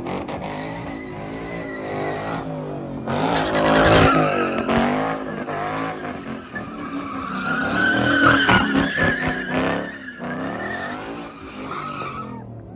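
A car doing donuts: its engine revs hard in rising and falling waves while the tyres squeal and skid, loudest about four and eight seconds in.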